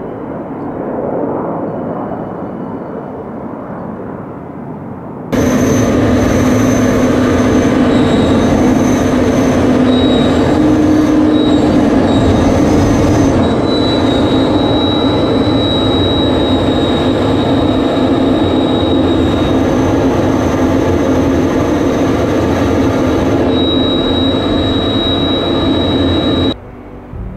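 Alpha Jets' turbofan engines heard from the ground as the formation climbs away after take-off, a rumble that swells about a second in. About five seconds in the sound switches abruptly to much louder, steady engine and air noise inside an Alpha Jet cockpit in flight, with a high steady whine over it. The cockpit noise cuts off sharply about a second before the end.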